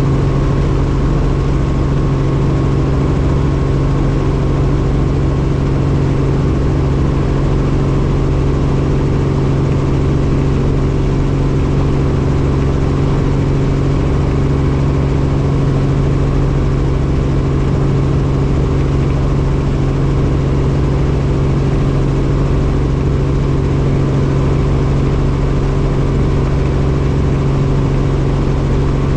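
Helicopter in flight: a loud, steady engine and rotor drone with a strong low hum that does not change.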